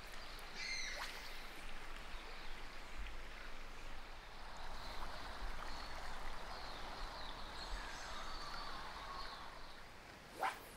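Stream water running steadily, with faint high chirps over it and one sharp click near the end.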